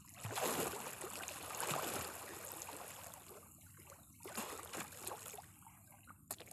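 Lake water splashing and swishing from a man's swimming strokes, rising and falling in uneven swells.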